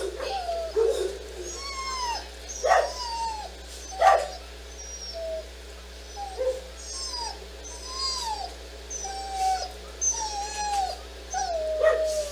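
Dog whining: a string of short, high whines that rise and fall, about one a second, with a few short barks in between.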